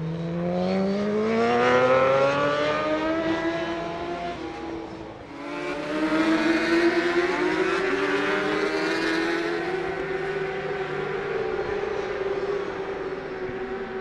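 Race motorcycle engines accelerating out of corners: one engine's note rises steeply, loudest about two seconds in, then fades. After a brief dip near five seconds, another engine note rises and holds fairly steady.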